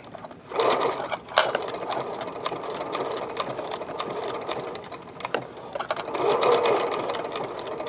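Electric sewing machine stitching at speed: it starts about half a second in, then runs steadily with a fast, even patter of needle strokes.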